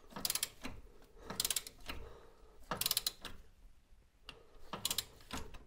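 Ratcheting torque wrench on a socket, clicking in four short bursts about a second and a half apart as it is swung back and forth to tighten a suspension nut to 40 foot-pounds.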